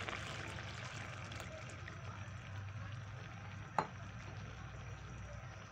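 Fish curry in a frying pan sizzling steadily as thin coconut milk is poured in. A single sharp click comes a little before four seconds in.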